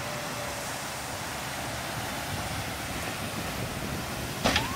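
Steady wind noise on the microphone over the mixed sound of boat engines and surf in a rough inlet. Near the end, a brief loud sound with a rising pitch cuts through.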